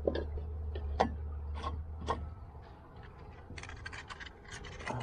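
Clinks and taps of a small titanium camp cook kit being handled and packed, a gas canister going into the pot, then a quick run of crinkly rattling clicks near the end. A low steady hum underneath stops a little under halfway through.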